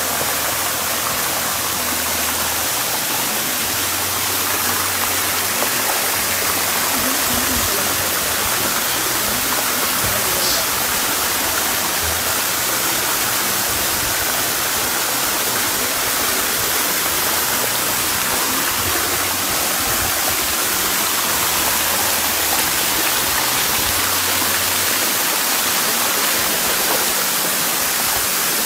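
Waterfall pouring into a rock pool: a steady rush of falling water.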